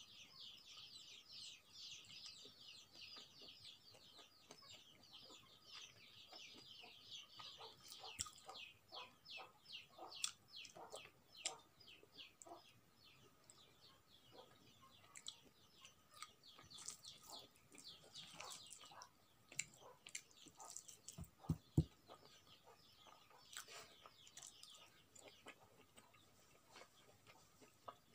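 Faint close-up eating sounds: quick runs of small wet clicks from chewing rice and curry eaten by hand, with a few dull knocks about three quarters of the way in.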